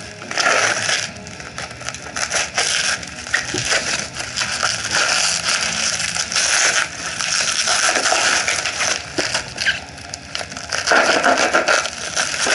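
Clear plastic wrapping film crinkling and crackling as it is handled and pulled off a motorcycle crash bar, with many small sharp crackles and a louder burst near the end.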